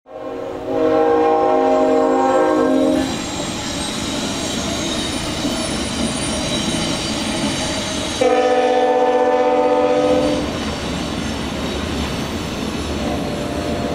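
Union Pacific freight locomotive's multi-chime air horn sounding two long blasts, each about two seconds and about five seconds apart. Under the horn is the steady rumble and wheel noise of the passing freight train.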